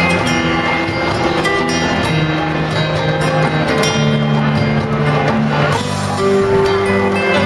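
Loud show music with plucked strings, moving through a series of long held notes.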